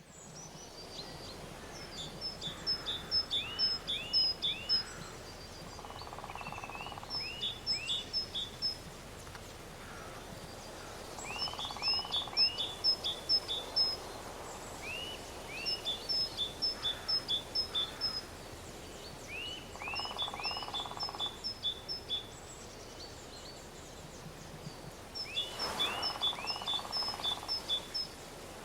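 A songbird singing the same short phrase over and over, roughly every four seconds: a few swooping notes, then a quick run of high chirps. A steady outdoor hiss runs underneath.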